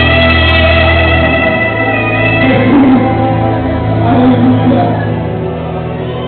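Music with steady held chords on plucked string instruments and some singing.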